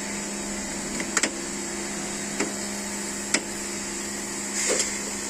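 Steady machine hum in the workshop with a handful of sharp clicks and knocks from hand tools as the alternator is taken off.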